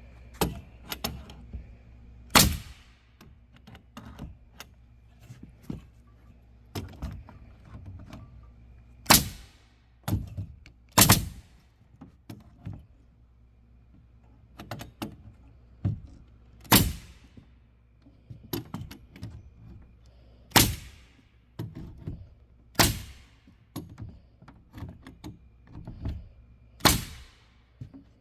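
Pneumatic palm nailer driving nails, a sharp loud strike every few seconds with lighter taps and clicks between, run off the air stored in the compressor's tank.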